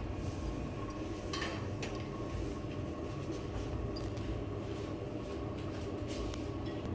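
Steady low background hum with a faint high tone running through it, and a few faint light clicks.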